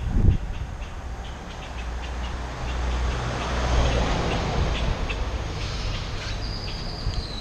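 Wind rumbling on the microphone with road noise from moving along a street, swelling in the middle. Faint short high chirps come through it, and a thin steady high whine starts near the end.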